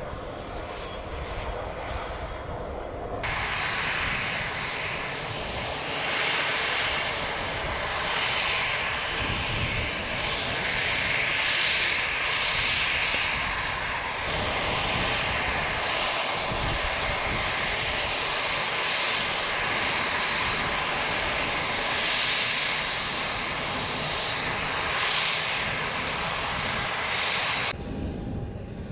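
Airplane engines running loud and steady, a broad roar that cuts in abruptly about three seconds in and cuts off abruptly about a second before the end.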